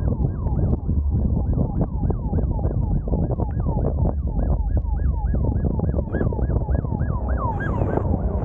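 Police car siren cycling fast, each cycle a quick falling wail at about three or four a second, growing louder as the car overtakes. Under it is a heavy, steady rumble of wind and road noise in the moving vehicle.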